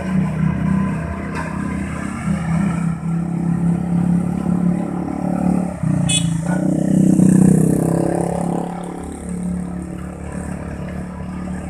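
Road compactor's engine running steadily, with a sharp clack about six seconds in; the engine swells to its loudest just after, then eases off.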